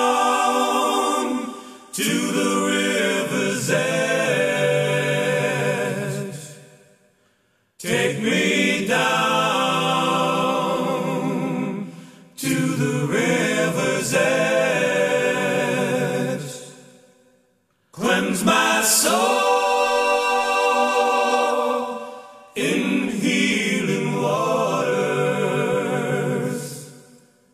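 Song soundtrack of several voices singing in harmony, in phrases of a few seconds, with brief near-silent pauses about every ten seconds.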